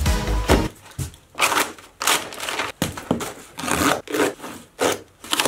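Utility knife slicing through packing tape on a cardboard parcel: a series of short, separate scraping strokes, with the tape and wrapping crinkling as it is cut open.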